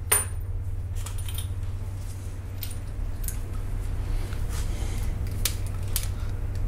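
Small clicks and light metallic clinks from handling brass rifle cases and steel digital calipers, the sharpest click just after the start and fainter ones scattered after it, over a steady low hum.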